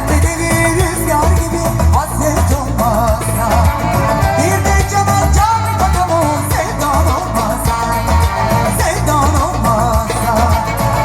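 Band music with a singer: a wavering, ornamented vocal melody over a steady, repeating bass beat.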